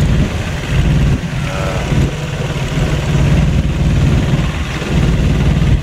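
Motorboat engine running steadily with the boat under way: a loud, low, even drone.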